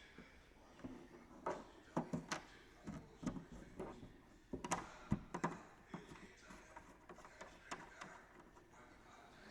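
Irregular knocks, taps and light scrapes of a fibreglass engine cowl being handled and offered up into place, busiest in the first six seconds and sparser after.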